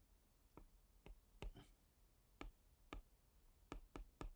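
Faint, irregular clicks of a stylus tip tapping a tablet screen as strokes of handwriting are put down, about nine taps.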